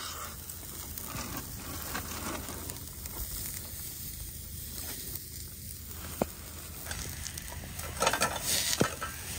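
Chicken breasts sizzling on a wire grill over glowing charcoal, with metal tongs clicking against the grate a couple of times. Near the end, a louder scraping clatter of food being turned in a frying pan over the fire.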